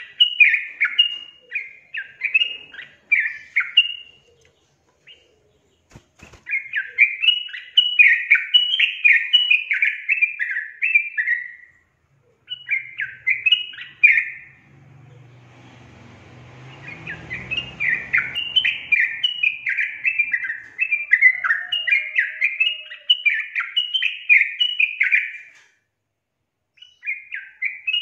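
Yellow-vented bulbul singing: long runs of quick, bubbly chattering notes, several seconds at a time, with brief pauses between phrases. About halfway through, a soft low rushing noise swells under the song for a few seconds.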